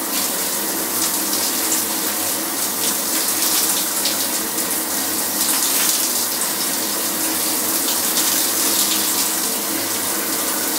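Shower running steadily, its spray of water pouring down without a break.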